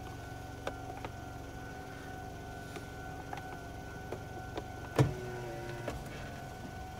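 Japanese railway level-crossing alarm ringing steadily while its warning lights flash, with scattered light ticks and a sharp knock about five seconds in, followed by a short low tone.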